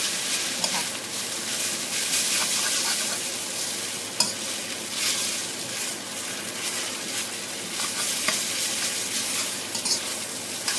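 Cabbage, carrot and glass noodles sizzling in a hot wok, stir-fried dry with no water added, as a spatula tosses and scrapes them. The hiss holds steady, with a sharp click of the spatula against the wok about four seconds in and another near the end.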